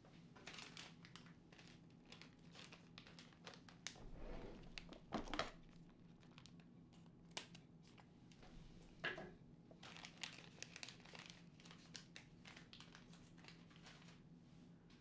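Small plastic bag being handled and crinkled: irregular rustling with a few louder crackles about five seconds and nine seconds in.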